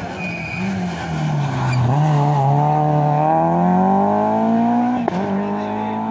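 Peugeot 208 rally car engine dropping and wavering in pitch as the car slows into a hairpin, then revving up steadily as it accelerates out. About five seconds in there is a sharp crack at an upshift, and the engine note steps down slightly and climbs again as the car pulls away.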